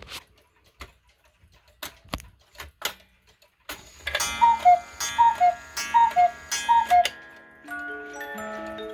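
Mechanical cuckoo clocks ticking. About four seconds in, one calls cuckoo four times, each a falling two-note call with the bellows hissing and a strike beneath it. Near the end its music box starts plucking a tune.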